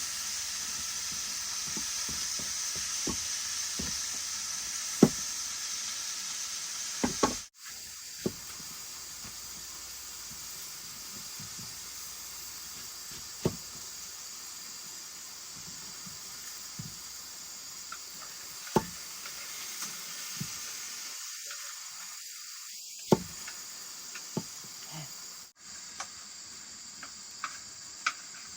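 Food frying with a steady sizzle, broken by scattered sharp knocks like a utensil striking the pan.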